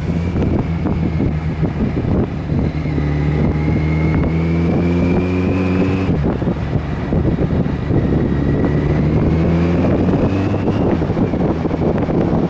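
Motorcycle engine accelerating, its pitch climbing, dropping suddenly at a gear change about six seconds in, then climbing again. Wind rushes over the microphone throughout.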